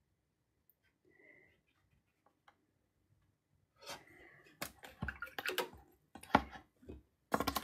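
A run of sharp clicks and taps starting about four seconds in, loudest near the end: a paintbrush knocking against a plastic watercolour palette of paint pans as paint is picked up.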